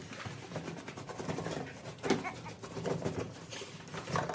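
Cardboard delivery box being handled and opened: rustling and scraping of cardboard, with a sharper scrape about two seconds in.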